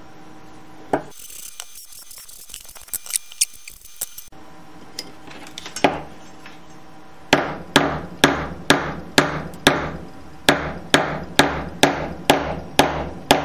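Ball-peen hammer striking the end of a mahogany chisel handle to drive it down onto a quarter-inch rod: a few scattered clicks and a single knock, then steady blows about two a second from about seven seconds in, with a brief pause about ten seconds in.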